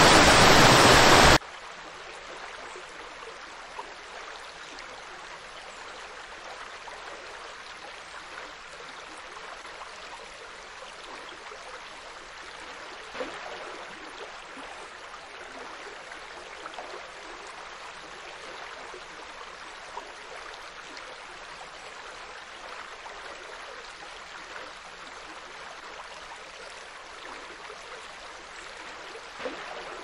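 Waterfall cascading over rock, loud, cutting off suddenly about a second and a half in to the quieter, steady sound of a river flowing, with gentle gurgling and a few small splashes.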